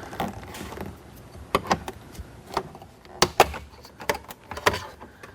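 Plastic interior trim of a car being worked loose by hand: a series of sharp, irregular clicks and snaps.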